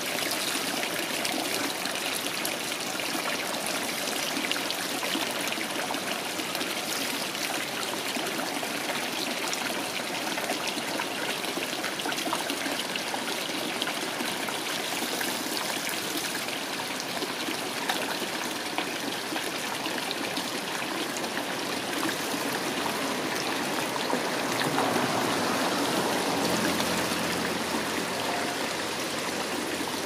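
Spring water running steadily from two plastic pipes into overflowing buckets, splashing and trickling onto a metal drain grating.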